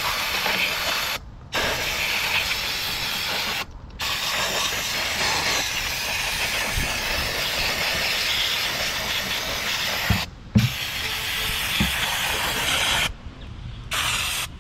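Aerosol can of CRC parts cleaner spraying onto a greasy metal vacuum pump in long hissing bursts, the nozzle let go briefly four times between sprays. A few light knocks partway through the last long burst.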